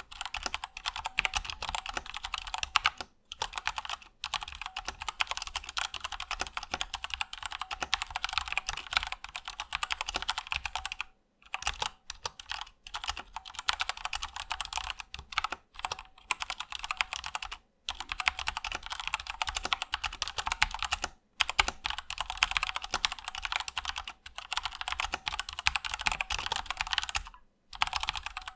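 Fast, continuous typing on a Patriot Viper V730 mechanical keyboard with tactile Kailh Brown switches: a dense run of key clacks broken by a few short pauses.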